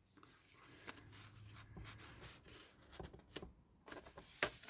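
Faint paper rustling and sliding as journal cards are pushed into paper stack pockets, with a few light taps. The sharpest tap comes near the end.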